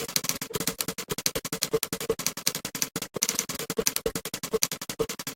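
Rapid typewriter key clicks, several a second, over electronic background music.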